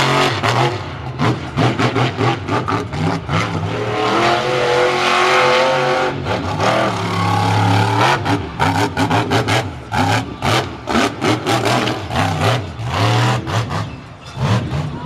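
Monster truck's engine revving hard while driving on a dirt track. The pitch climbs about four to six seconds in, then the engine is blipped on and off rapidly through the second half.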